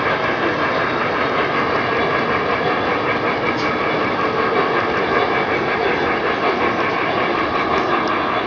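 O-gauge model train running on three-rail track: a steady rolling rumble and hiss.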